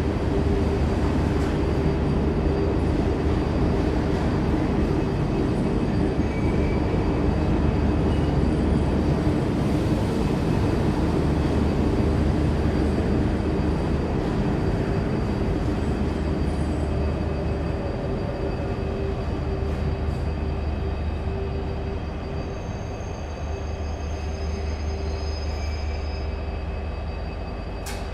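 Train running close by at a station: a loud, steady, dense rumble with a constant hum through it, easing off a little in the last few seconds, with a couple of sharp clicks near the end.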